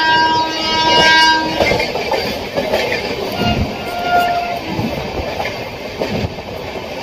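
A train horn sounds for about a second and a half, followed by the rumble and clickety-clack of a train running on the rails.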